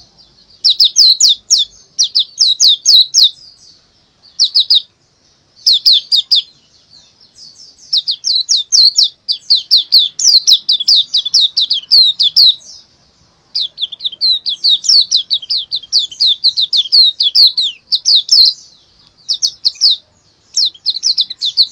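White-eye (pleci) singing: rapid runs of high, down-slurred chirps, several a second, in bursts of one to two seconds separated by brief pauses.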